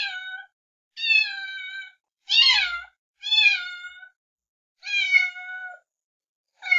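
A cat meowing again and again, about once a second. Each meow is high-pitched and slides down in pitch, with short silent gaps between them.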